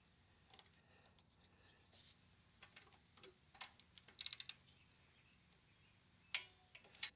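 Ratcheting torque wrench tightening a valve rocker-arm lock nut: faint scattered ticks, then a quick run of ratchet clicks about four seconds in. Near the end come one or two sharp clicks, the wrench breaking at its 70 inch-pound setting.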